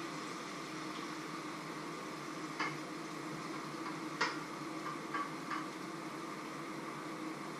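Pancakes frying in two pans with a steady sizzle, broken by a few light kitchen knocks and clinks of bowl and utensils, the sharpest about four seconds in.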